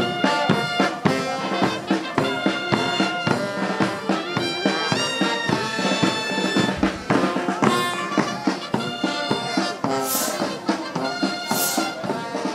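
Instrumental music led by brass instruments, with a steady pulse of repeated notes.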